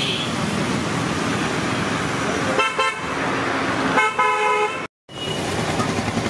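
Steady roadside traffic noise with vehicle horns honking twice: a short toot about two and a half seconds in, then a longer honk about four seconds in.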